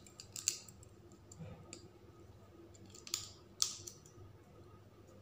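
A few sharp clicks of a raw eggshell being tapped and picked at to make a small hole for draining out the white: one about half a second in, then two about half a second apart past the three-second mark.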